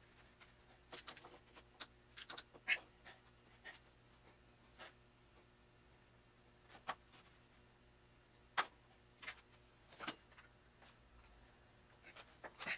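Scattered small clicks and taps of drill bits and their plastic case being handled, over a faint steady hum.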